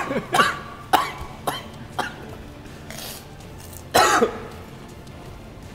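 A man coughing and clearing his throat: a few short coughs in the first two seconds, then a louder cough about four seconds in. He is reacting to the burn of a Carolina Reaper hot sauce in his throat.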